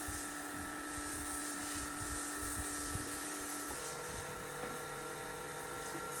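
A small electric motor running steadily with a whine over a hiss; its tone changes about two thirds of the way through.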